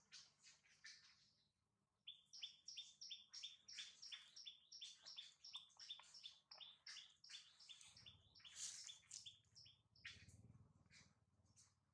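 Faint chirping of a small bird: a quick run of short high notes repeated about four times a second, starting about two seconds in after looser chirps.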